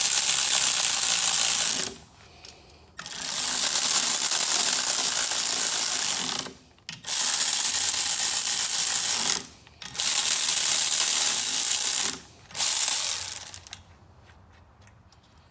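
Cordless electric ratchet spinning down the cylinder head bolts on a Yamaha 30 HP outboard, in five steady runs of one to three seconds each with short pauses between as it moves from bolt to bolt. The bolts are being run up snug ahead of torquing, not tightened all the way.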